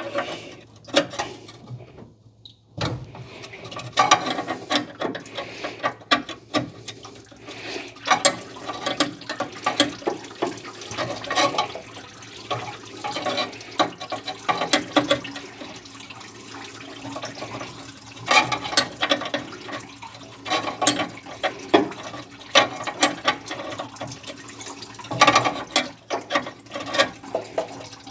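Irregular metallic clicks, clinks and scrapes of a flare nut wrench working on the transmission cooler line fittings at the radiator of a 1986 Chevrolet C10.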